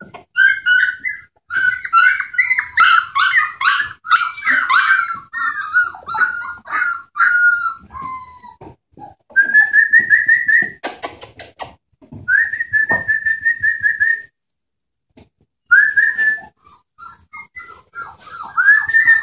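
Rhodesian ridgeback puppies whining and yelping: many short high-pitched cries in quick succession, then a few longer, drawn-out high cries with pauses between. A brief clatter of sharp knocks comes near the middle.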